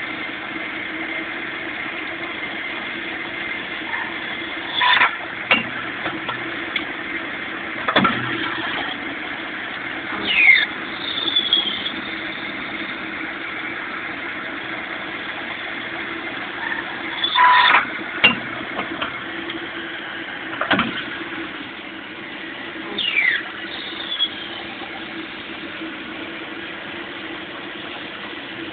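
Cam-type automatic lathe running in automatic operation, turning small posts: a steady machine hum with a constant tone, broken by sharp clacks and short falling squeals. The pattern repeats about every 12 to 13 seconds, one machining cycle after another.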